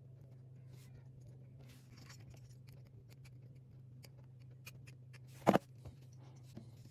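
Small clicks and scrapes of tools and parts being handled at an electronics workbench over a steady low hum, with one sharp, loud click about five and a half seconds in.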